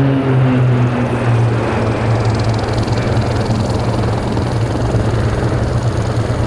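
A formation of single-engine turboprop aerobatic aircraft flying past overhead: the propeller drone falls in pitch as they pass in the first second, then settles into a steady low drone with a broad rushing noise.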